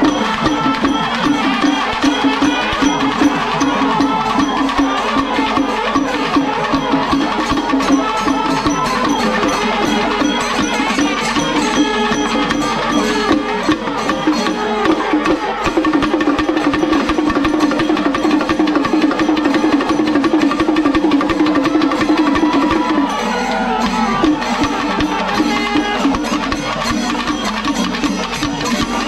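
A traditional Kerala temple percussion ensemble (melam) playing: dense, rapid drum strokes run throughout, and a held wind-instrument tone sounds strongly from about halfway in until a few seconds before the end.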